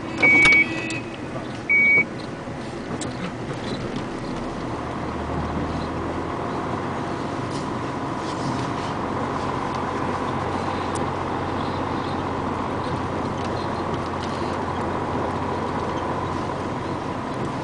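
A vehicle's reversing alarm beeps twice in the first two seconds. After that comes the steady running noise of a vehicle driving slowly over a gravel yard, heard from inside the cab, with a faint drone that grows louder about halfway through.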